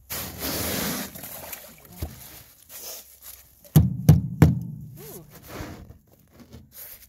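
Ice and crusted snow being scraped and chipped off an aluminum boat deck with a hand-held bar: a loud scrape about a second long at the start, then scattered softer scrapes and three sharp knocks about four seconds in.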